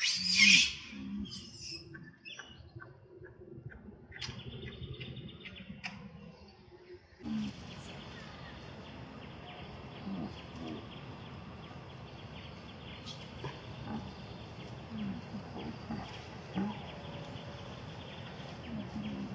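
A baby macaque screaming in shrill, arching calls in the first second, with a few fainter calls over the next few seconds. From about seven seconds in there is a steady outdoor hiss with occasional soft low sounds.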